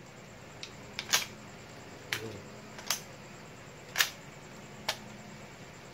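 About seven sharp clicks and clacks at irregular intervals, the loudest just after a second in and about four seconds in, from an airsoft rifle being handled.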